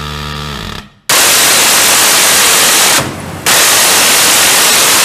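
Phalanx CIWS 20 mm six-barrel Gatling gun firing: a buzzing burst ends about a second in, then two long bursts of about two seconds each with a short gap between. The bursts are loud and harsh, a continuous 'zipppp' rather than separate shots.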